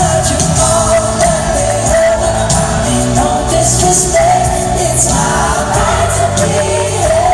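Live pop concert music, loud and continuous: a singer over an amplified band with a steady bass line and drums.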